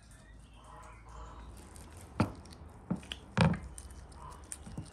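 A metal fork knocking and clinking against a metal muffin tin and a wooden bowl while filling is portioned into pastry cups: a handful of sharp knocks, the loudest about three and a half seconds in.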